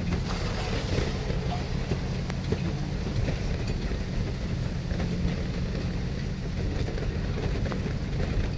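Small tourist ride-on train running steadily, heard from aboard: a low, even engine drone with the rumble of the carriages rolling along.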